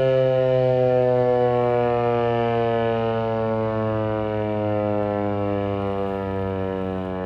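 American Signal T-128 dual-tone rotating tornado siren sounding, its wail falling slowly and steadily in pitch as it winds down.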